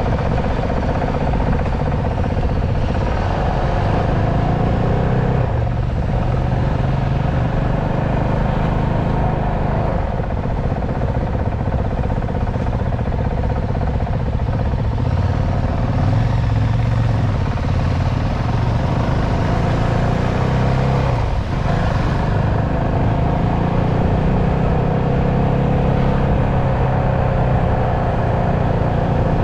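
Honda CRF450RL's single-cylinder four-stroke engine running at low road speed, heard from the riding bike. The revs dip and pick up again a few times, about six, ten and twenty-one seconds in.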